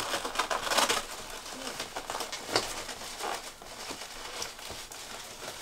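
Paper covers of advent-calendar cups being poked through and rustled by fingers: a burst of crinkling and tearing in the first second, then softer scattered rustles and taps.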